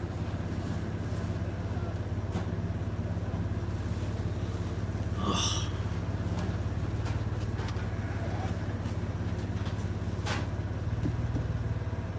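Vehicle engine running steadily, a low even hum heard from inside the cabin. A brief higher squeak sounds about five seconds in.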